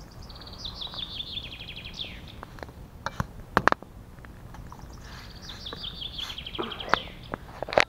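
A songbird singing two phrases, each a quick run of high notes that drops slightly and ends in a downward flourish; the second phrase begins about five seconds in. A few sharp clicks or knocks come in between, the loudest about three and a half seconds in.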